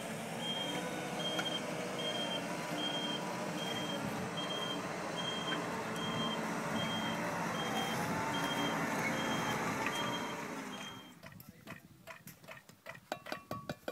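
Construction vehicle reversing with its back-up alarm beeping steadily, about once every 0.8 s, over the running engine. Both stop about 11 seconds in, after which come short scraping and clicking sounds.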